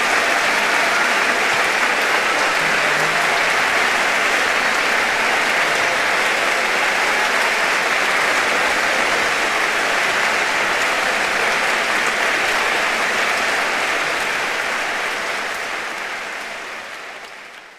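Audience applauding steadily, the clapping fading out over the last few seconds.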